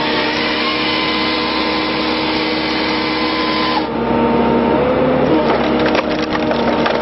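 Excavator-mounted firewood processor head at work: the machine's engine and hydraulics run with a steady whine. After an abrupt change about four seconds in, logs crack and splinter as they are split.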